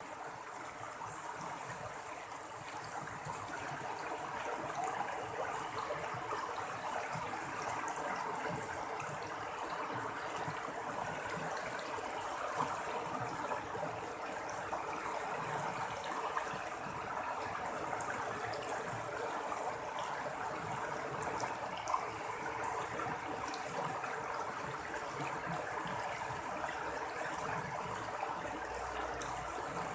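Running water babbling and splashing steadily, with small splashes throughout.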